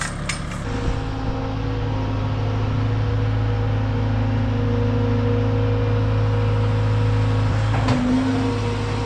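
Skid steer engine running; about a second in it comes up to a higher, steady throttle and holds there. Near the end there is a clunk, and the engine settles slightly lower.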